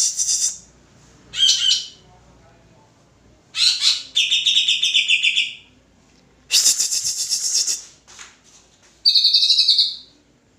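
Leafbird (cucak hijau) singing in loud bursts of very fast, rattling trills and chatter, about five phrases with short pauses between them; the longest, a few seconds in, ends in a buzzy trill held on one pitch.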